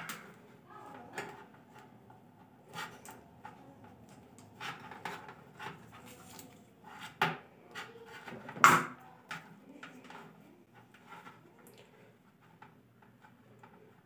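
A coiled rubber power lead with a two-pin plug being handled and untangled: scattered light clicks, knocks and rubbing, with one sharper knock a little under nine seconds in.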